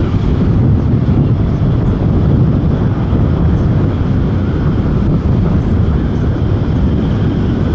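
Boeing 737-800's CFM56-7B turbofan engines at approach power as the airliner comes in to land, a steady low rumble.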